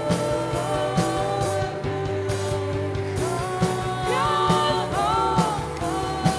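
Rock music soundtrack with singing, sustained guitar-like tones and a steady beat about once a second; gliding vocal notes come in past the middle.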